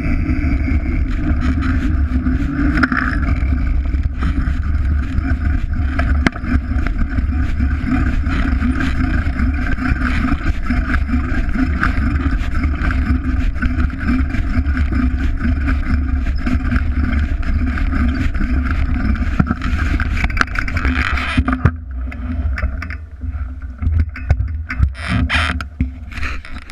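Wind buffeting the mountain bike's camera microphone, with knobby tyres rolling over a dirt and gravel trail and the bike rattling in frequent sharp clicks. About 21 seconds in the noise eases and becomes patchier.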